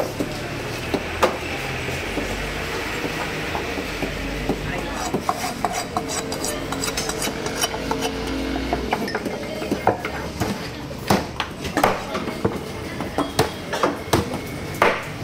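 Large fish-cutting knife chopping through barramundi (koduva) pieces on a wooden chopping block: a few sharp knocks at first, then a quick, irregular run of chops in the last five seconds, over a steady market din.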